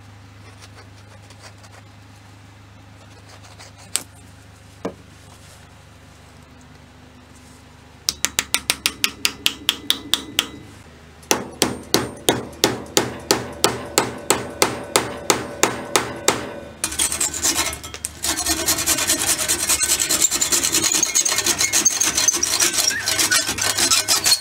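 Hammer blows driving a glued wooden wedge into a hatchet's eye: a quick run of light taps about five a second, then heavier strikes about two or three a second. Then a handsaw rasps rapidly back and forth, cutting the wedge off flush.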